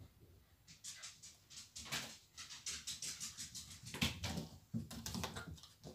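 Faint, irregular light clicks and taps from a small dog moving about off-camera as he goes to fetch his plate.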